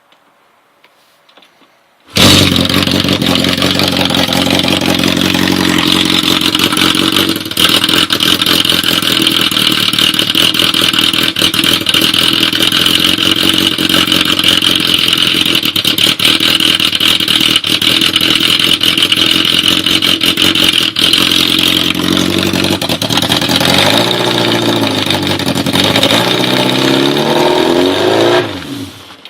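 1978 Kawasaki KZ650SR's air-cooled inline-four engine running at a steady speed on only three cylinders, with a vacuum leak. It comes in abruptly about two seconds in. Near the end its pitch wavers up and down, then sinks as it shuts off.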